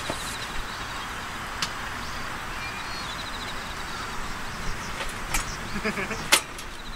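Light clicks and metal knocks from a small folding stainless-steel camp grill being lifted and set down on a cloth mat, over steady outdoor background noise; the sharpest knock comes about six seconds in.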